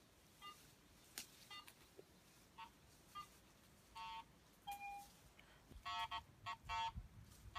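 Metal detector giving faint, short electronic beeps of differing pitch, one held a little longer about halfway, with the beeps coming closer together near the end as the coil is swept over a stone wall: the detector is going off all over the wall.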